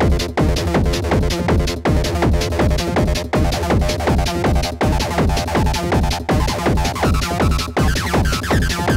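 Fast acid techno played live on hardware: a driving drum-machine kick pattern under a 303-style acid bassline, with a short regular dip in the groove about every second and a half.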